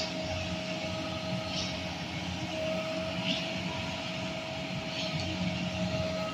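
Concrete mixer trucks' diesel engines running: a steady low rumble with a steady whine over it, and a short high chirp that repeats about every second and a half.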